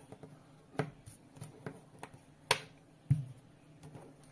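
Hands handling a small plastic water-leak sensor probe and its cable: a scatter of clicks and light taps, the sharpest about two and a half seconds in, followed by a duller thud.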